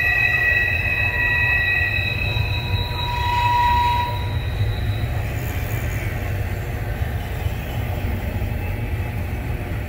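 CSX double-stack intermodal freight cars rolling past with a steady low rumble. A high-pitched wheel squeal of several held tones carries through the first four seconds or so, then fades out.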